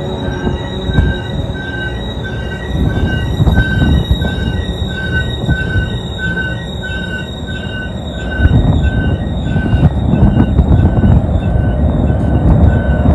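Freight cars rolling past with a steady rumble, wheels squealing in an even pulsing pattern about twice a second. From about eight seconds in, the deeper rumble of the diesel locomotives grows louder as they come near.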